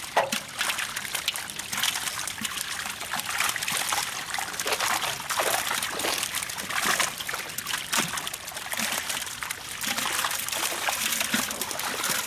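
Water trickling and splashing, with many small irregular splashes and drips, as fish and water are handled at the edge of a pond.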